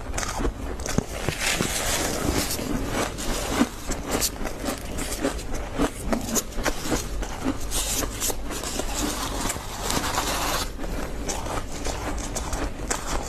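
Close-miked crunching and chewing of freezer frost eaten by the handful: a dense run of crisp, snow-like crunches.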